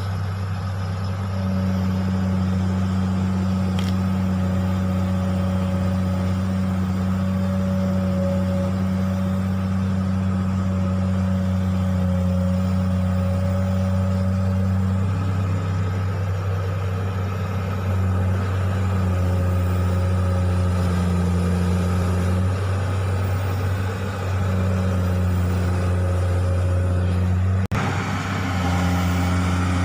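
Komatsu hydraulic excavator's diesel engine running steadily under working load, its pitch shifting slightly now and then as the hydraulics take load, with a brief break near the end.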